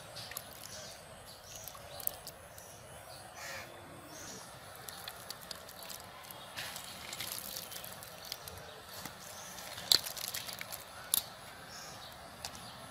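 Outdoor background with faint bird chirps and a few sharp clicks and knocks, the loudest about ten seconds in.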